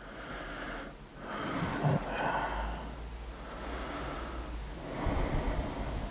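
Soft breathing and rustling close to the microphone while a handheld camera is moved, with a low rumble of handling noise.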